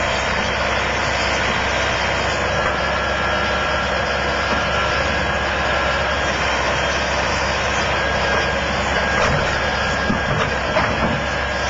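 Heavy diesel construction machinery running steadily, with a faint high whine held over the engine noise.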